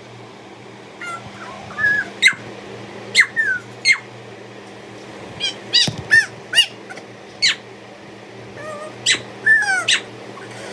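A baby's short, high-pitched squeals and shrieks, about a dozen of them, some rising and some falling in pitch.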